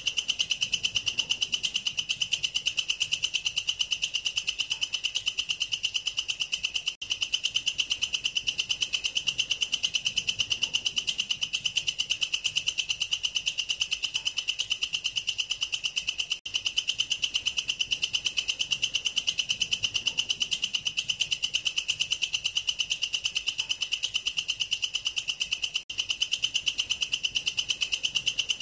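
Katydid (walang kerik, a bush cricket) singing a continuous, high-pitched, rapidly pulsing trill, broken by three very short pauses.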